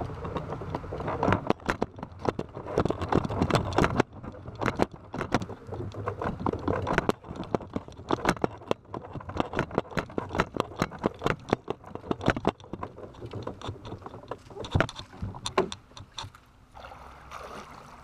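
A fishing kayak and its load of gear rattling and knocking as it is wheeled on a cart over pavement, with a low rolling rumble. The rumble stops abruptly about four seconds in, and lighter knocks and clatter of the kayak and gear continue, thinning out near the end.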